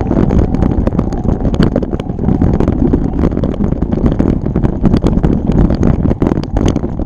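Wind rumbling on the microphone while riding a bike on a trail, with frequent small clicks and rattles throughout.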